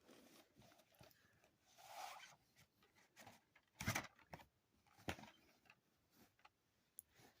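Faint rustling and scattered clicks of DVD packaging being handled, with a rustle about two seconds in and a sharper click about four seconds in.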